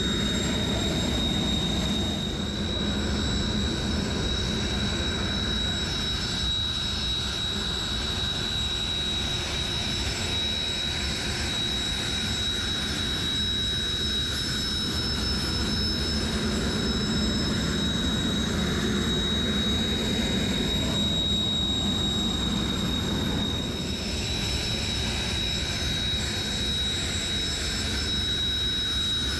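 Turbofan engines of Air Self-Defense Force jet trainers (T-4 or T-400) running steadily: a continuous jet roar with a high, steady whine over it that neither rises nor fades.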